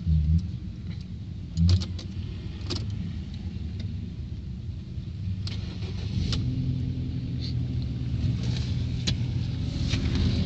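Ford Focus II 1.6-litre 100 hp petrol engine running cold, with a knock over the idle and scattered sharp clicks. The knock comes only on a cold start and goes once the engine is warm; the owner takes it for valve clearances needing adjustment with new or reselected tappet buckets or shims.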